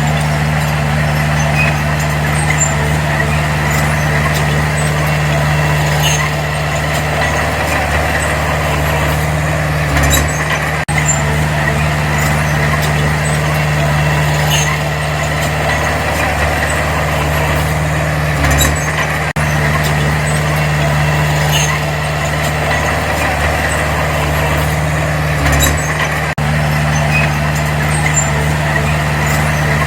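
Heavy earthmoving machine's diesel engine running steadily under work, with a few brief low thuds.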